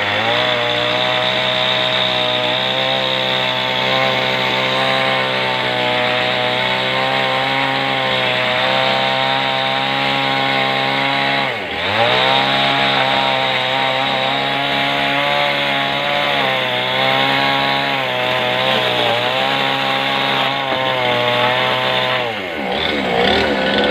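Two-stroke chainsaw running steadily as it cuts through wooden deck planks. Its pitch dips briefly about halfway through, then falls away near the end as the saw winds down.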